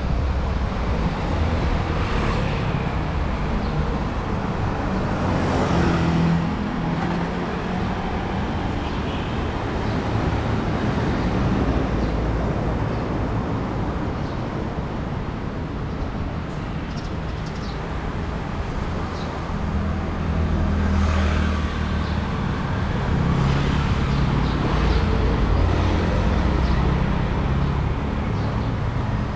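City street traffic: motor vehicles running and passing on the road, a continuous rumble that grows louder about six seconds in and again for several seconds from about twenty seconds in.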